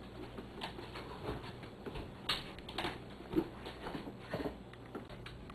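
Light, irregular knocks and clatter of kitchen items being handled at a counter, over a steady low hum.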